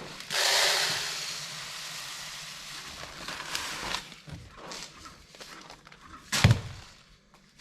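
A grain sample being handled at the bench: a rush of pouring or rustling noise that fades over a few seconds, a few light clicks, then one sharp knock.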